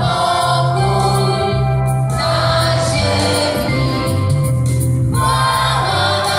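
Mixed choir of women and men singing, amplified through stage microphones and speakers.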